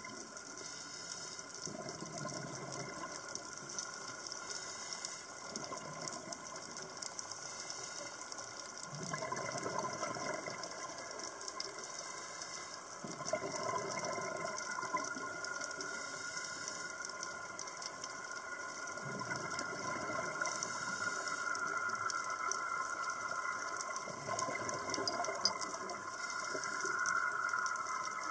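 Underwater sound of a scuba diver breathing through a regulator: a hiss on each inhale and a gurgle of bubbles on each exhale, repeating every few seconds.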